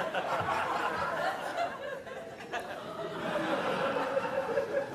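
Theatre audience laughing together, a steady mass of chuckles and laughter.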